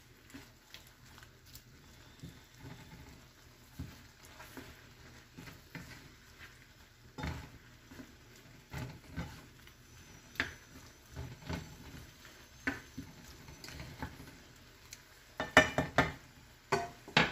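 Wooden spatula stirring shrimp and mushrooms in a frying pan, with irregular soft scrapes and knocks against the pan over the faint sizzle of the simmering sauce. A quick run of louder knocks comes near the end.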